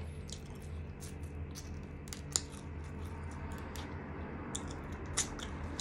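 Quiet eating sounds: scattered soft clicks and smacks of chewing, with one sharper click about two and a half seconds in, over a steady low hum.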